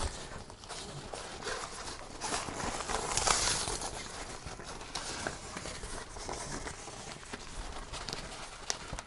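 Softbox diffuser cloth rustling as it is stretched over the frame and fitted to its edges, with scattered light taps and clicks; the loudest rustle comes about three seconds in.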